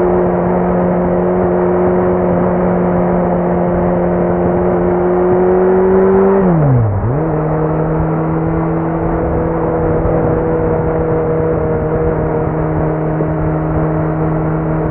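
Kawasaki Z900's inline-four through a Leo Vince muffler with no dB killer, running at steady riding revs that climb slowly. About halfway through the revs drop sharply and come back to a slightly lower steady note, as in a gear change.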